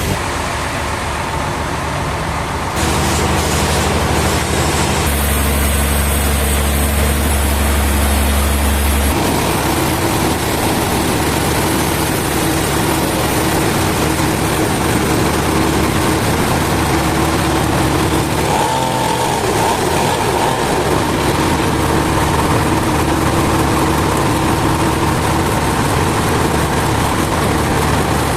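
Sawmill machinery running: a steady engine-like drone under a broad mechanical hiss, changing character abruptly several times.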